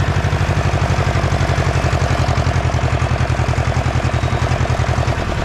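Ursus C-335 tractor's two-cylinder diesel engine running steadily under load while pulling a disc harrow, with an even, fast pulsing beat.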